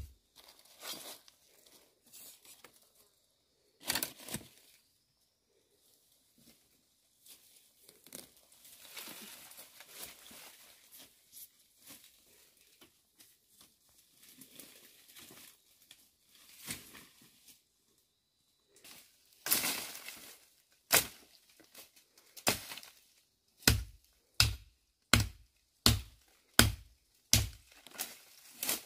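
Scattered rustling, crinkling and tearing with an occasional knock, then a run of regular chopping strokes, about three every two seconds, in the last third.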